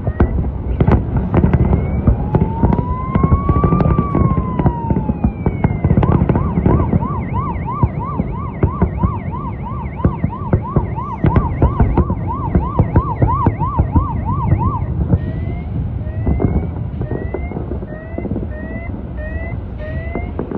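Fireworks bursting in quick succession with booms and cracks, under a siren. The siren gives one slow rising and falling wail, then a fast warbling yelp for several seconds, then short rising whoops about once a second near the end.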